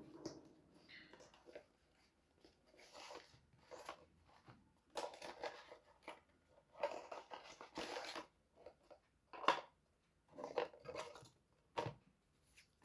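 A microphone's retail box and its packaging being handled and opened, heard as irregular bursts of rustling and scraping.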